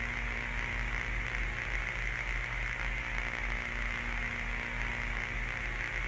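Steady static hiss over a low electrical hum.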